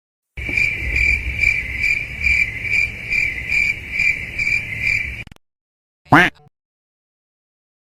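Crickets chirping in a steady high trill that pulses a little over twice a second over a low rumble, lasting about five seconds and stopping abruptly: the stock 'crickets' effect used for an awkward silence. A brief sweeping sound follows about six seconds in.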